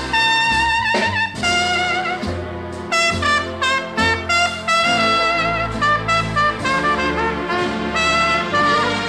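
Instrumental jazz-style music: a brass lead, trumpet-like, plays a melody with vibrato over a bass line.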